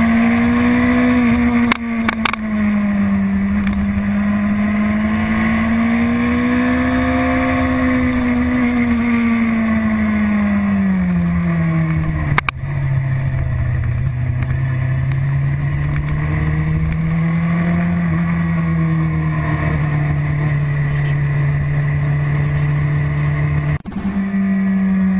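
Sport motorcycle engine running under way at steady revs, its pitch drifting gently up and down. About halfway through there is a click and the pitch drops suddenly; near the end, after a brief break, it comes back higher.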